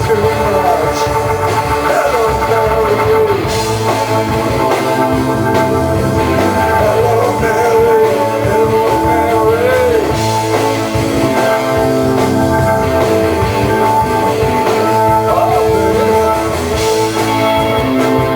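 Rock music: guitar with a singing voice over a steady band, with a lead line bending in pitch through the first half.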